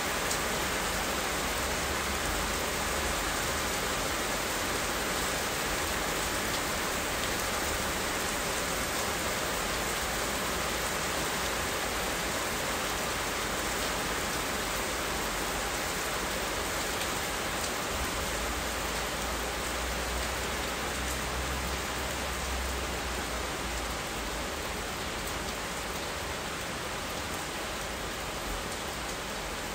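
Steady rain: an even hiss with scattered faint drop ticks and a low rumble underneath.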